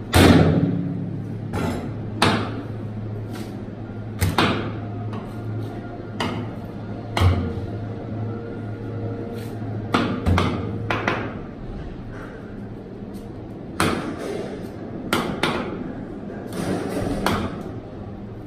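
Butchering beef on a cutting board: irregular thuds and knocks of the knife and meat slabs hitting the board, the loudest one at the very start, over the steady low hum of the meat room's cooling fan.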